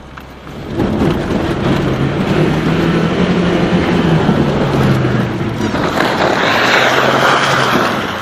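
Lada Niva 21214's four-cylinder engine pulling hard under load as the car drives onto a frozen bog. From about six seconds in, a loud rushing, crunching noise of the tyres breaking through the ice and churning slush and water joins it.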